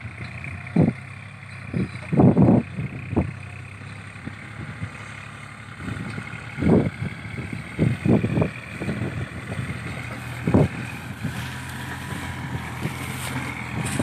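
Small farm tractor's engine running steadily as it drives and tows a trailer loaded with hay bales. Short low gusts of wind hit the microphone several times.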